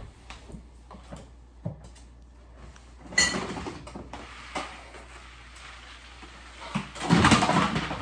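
Knocks, clicks and scrapes of a person climbing onto a wooden chair and shifting things on top of a tall kitchen cabinet, with a louder clatter about three seconds in and a longer, louder scrape near the end.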